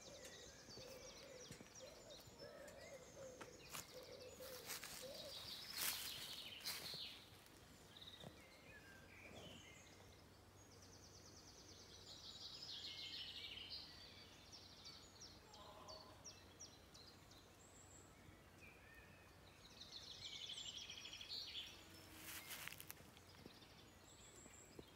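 Near silence with faint birdsong: scattered high chirps and short trills. A couple of brief rustling noises, the loudest about six seconds in.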